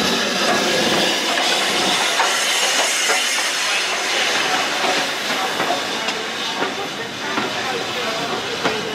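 BR Standard Class 5 steam locomotive 73082 Camelot passing close by with a steady hiss of steam, then its tender and coaches rolling past, wheels clicking irregularly over the rail joints. The sound slowly fades as the train moves away.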